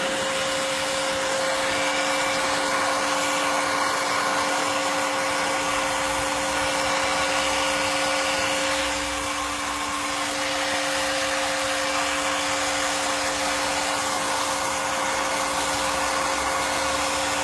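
Electric heat gun blowing steadily, a constant rush of air with two steady humming tones from its fan motor, dipping slightly in level about nine seconds in.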